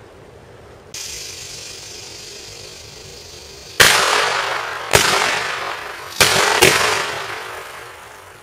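A steady hiss, then four firecracker (Böller) bangs: the first two a little over a second apart, the last two close together. Each bang rings out in a long echo that dies away over a second or more.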